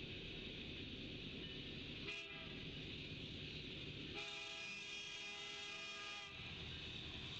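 Lead Union Pacific SD70ACe locomotive sounding its multi-chime air horn for the grade crossing: a short blast about two seconds in, then a long blast from about four to six seconds as it reaches the crossing, over the steady noise of the approaching train.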